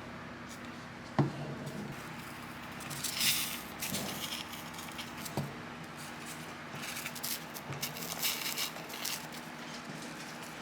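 Hands working on wooden camping ware: a sharp knock about a second in, then short bursts of hissing, rubbing sound around three seconds in and again near eight seconds.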